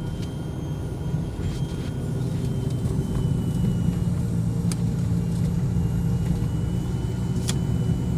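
Car running along a road, heard from inside the vehicle: a steady low engine and road rumble, a little louder after about two seconds, with two light clicks in the second half.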